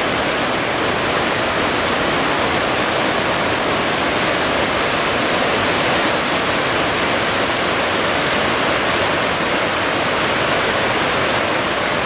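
Rapids of a river in flood, the water running high and fast over submerged rocks and beach: a steady, loud rushing noise.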